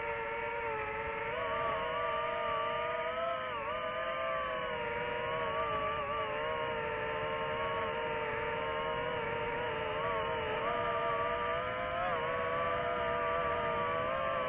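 FPV quadcopter's electric motors and propellers whining steadily in flight, the pitch wavering and dipping briefly a few times with the throttle.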